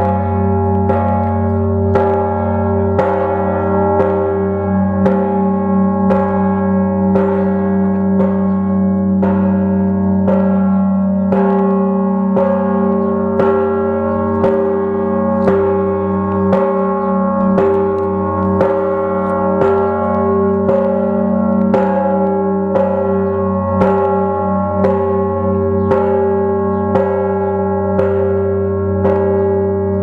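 Large church bells in an open bell frame ringing, struck roughly once a second, each strike adding to a deep, sustained hum that never dies away.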